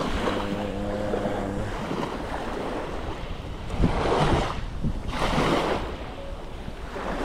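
Small waves washing up and draining back over a pebble beach, with two louder surges about four and five seconds in, and wind on the microphone. A steady low hum sounds briefly in the first second and a half.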